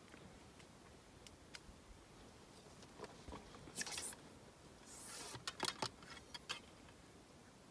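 Faint rustling and scattered small clicks of close handling, with two louder spells of scraping rustle around the middle.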